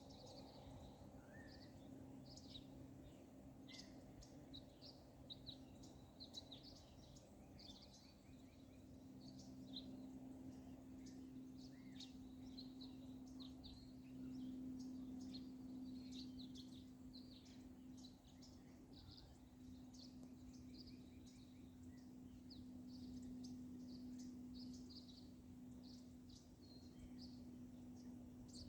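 Many small birds chirping, short high calls scattered throughout, faint, over a steady low hum.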